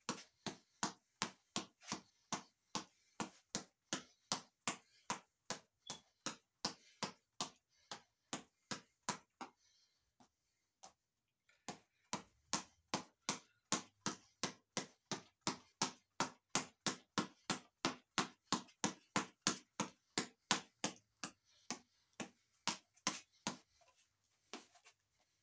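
A boxing reflex ball on an elastic headband cord being punched in quick, even rhythm: a sharp tap about two to three times a second. The taps break off for about two seconds around ten seconds in, then resume.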